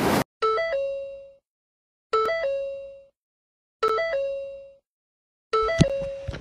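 A short electronic chime jingle, a few quick notes ending on a held, fading tone, played four times about every second and a half with silence between: an edited-in sound effect. Under the last one, background noise and a couple of sharp clicks come in.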